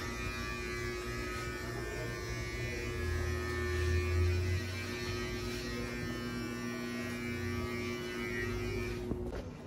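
Electric hair trimmer running steadily as it cuts a beard, a continuous buzzing hum that grows briefly louder about four seconds in and cuts off just before the end.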